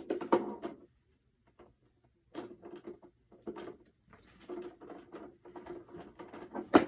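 Handling noise from dressing the animated Santa figure: irregular rustling of the fabric suit against the figure's frame, with short pauses, and one sharp click near the end.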